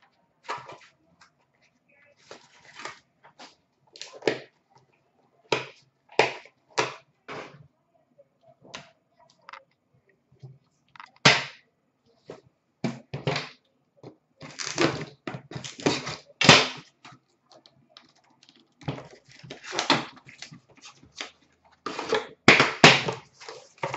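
Handling noise from sealed hockey card boxes and a metal card tin being picked up and set down on a glass counter: irregular taps, clicks and knocks, sparse at first and coming thicker and louder in the second half.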